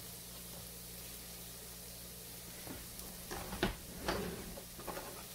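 Comb tooth mushrooms sautéing in butter in frying pans on a gas stove, a faint steady sizzle over a low hum. A few light knocks of cookware come a little past halfway through.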